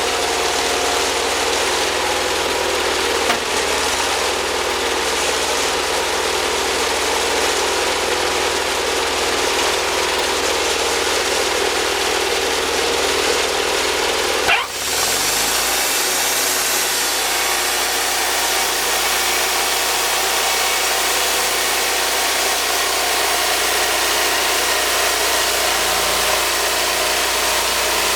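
Wood-Mizer portable sawmill running steadily. About halfway through the sound breaks off for an instant, then carries on with a changed, steady tone.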